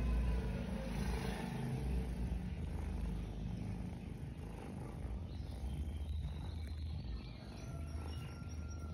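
Cats purring close up as kittens nurse from their mother: a steady low rumble.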